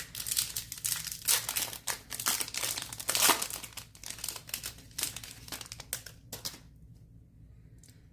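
Foil wrapper of a Topps Chrome baseball card pack crinkling and crackling as it is torn open and handled, loudest about three seconds in; the crinkling dies away about six and a half seconds in.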